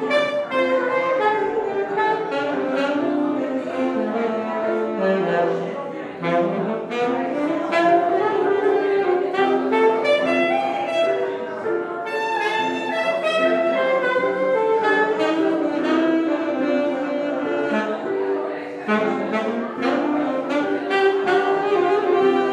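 Saxophone and acoustic guitar playing jazz. The saxophone leads with a flowing melodic line that runs down into its low register about five seconds in and climbs back up, and dips low again near the end.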